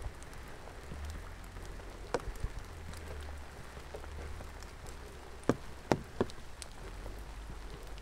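Steady rain falling, with scattered sharp drip hits; the loudest are three close together a little past the middle.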